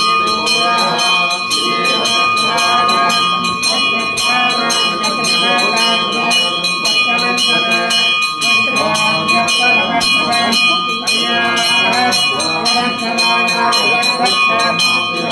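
A temple bell rung rapidly and without pause during worship, its ringing tone held steady under a dense run of strikes. Voices are heard chanting beneath it.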